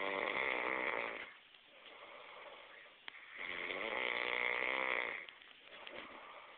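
A person snoring in long, rough breaths: one loud snore trails off about a second in, and another runs from about three and a half to five seconds in, with quieter breathing between them.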